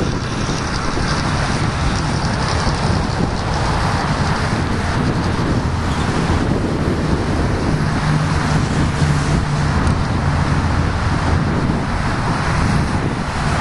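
Steady highway traffic with wind noise on the microphone. An SUV and then a semi-trailer truck pass close by, with a low engine drone building in the second half.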